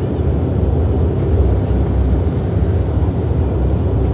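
Steady low rumble of a Dash 8 Q400's Pratt & Whitney PW150A turboprop engines and propellers, heard inside the cabin while the airliner moves on the ground after landing.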